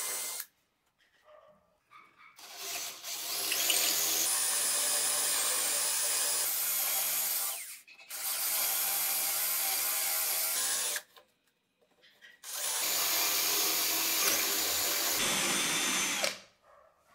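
Cordless drill boring holes through a wooden vise jaw. It runs in three steady stretches of a few seconds each, with short stops between them.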